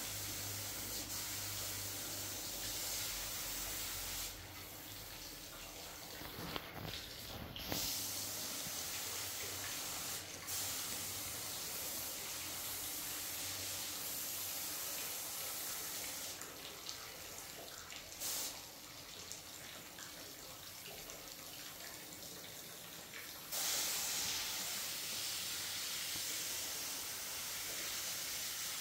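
Paint spray gun on a compressed-air hose hissing steadily as it sprays, with the hiss stopping twice: for a few seconds about four seconds in, and for about seven seconds in the middle.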